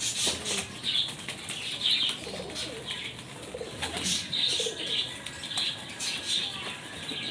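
Domestic pigeons cooing, with bursts of wing flapping about once or twice a second.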